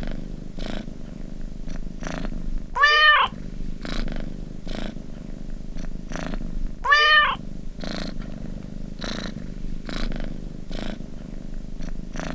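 Domestic cat purring steadily, with a meow that rises and falls, twice, about four seconds apart. This is the looped alarm that marks the end of a countdown timer.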